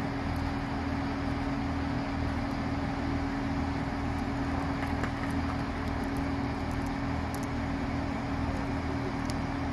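Networker Turbo diesel multiple unit standing at the platform with its diesel engines idling: a steady hum over a low, even throb.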